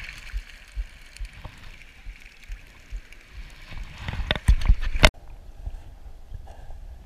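Shallow stream water rushing, with scattered handling knocks. Near the end a loud burst of splashing and bumps as the camera and dip net plunge into the water, after which the sound cuts to a dull, muffled underwater rumble.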